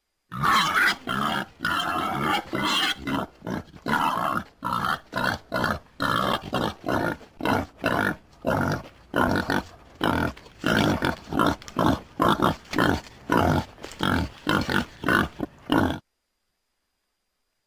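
Wild boar grunting in a fast, steady series of short, loud grunts, about two a second, cutting off suddenly near the end.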